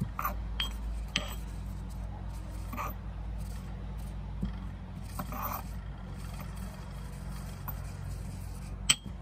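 A ceramic pestle grinding and scraping lavender flowers in a ceramic mortar, in short irregular scrapes, over a low steady hum. A sharp knock about nine seconds in is the loudest sound.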